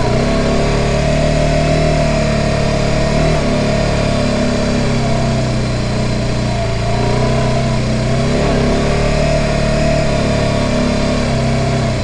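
Motorcycle engine running steadily while riding, its pitch dipping briefly twice, over a constant rushing noise.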